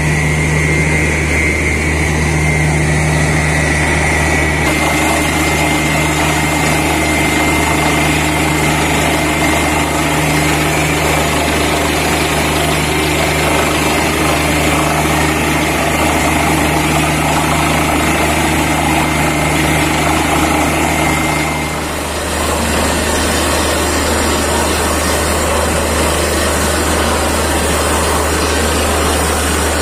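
Truck-mounted borewell drilling rig running: a loud, steady engine and compressor drone with a hiss of air blowing through the borehole. The tone shifts slightly, with a short dip, about two-thirds of the way through.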